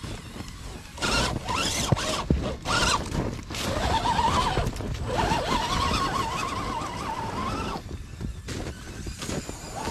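Radio-controlled scale crawler truck's electric motor and gearing whining, the pitch rising and falling with the throttle. Loud crunching and rustling come early on.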